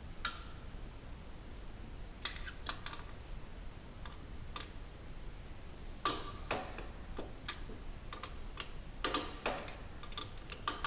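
Irregular light clicks and clatters of hand tools and fittings being handled and worked, coming in small clusters of a few quick clicks with pauses between.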